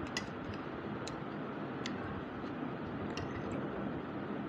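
A metal spoon clinking and scraping against a ceramic plate while scooping fried rice, a handful of sharp, separate clicks over a steady background hiss.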